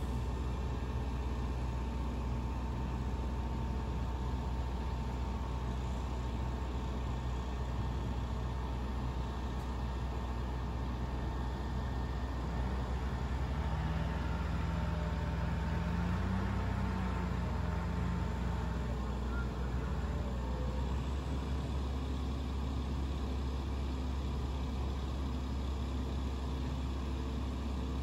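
Engines of a mobile crane and a log bronc boat running in a steady low drone, with a brief rise in pitch around the middle.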